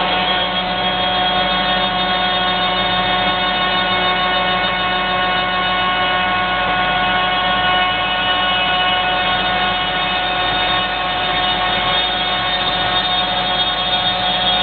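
CNC board-shaping machine running steadily, its spindle giving an even whine of several fixed tones with no change in speed.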